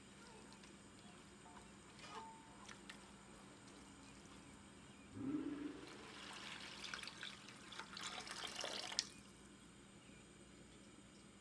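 Water poured into a cooking pot: a low rising gush about five seconds in, then about four seconds of pouring and splashing that cut off suddenly.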